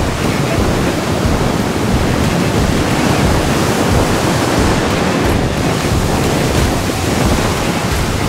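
Water rushing along the hull of a racing sailing yacht under way, with wind buffeting the microphone as a steady loud rush.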